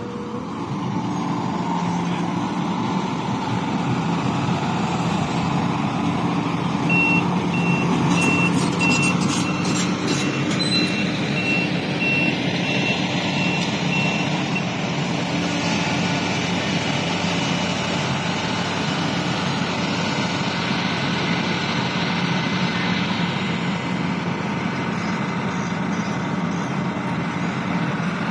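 Heavy diesel trucks running steadily. A reversing alarm beeps about twice a second for several seconds in the middle.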